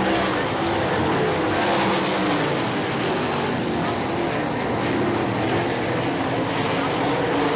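A field of winged sprint cars racing on a dirt oval, their V8 engines running together as overlapping engine notes that rise and fall as the cars go through the turns.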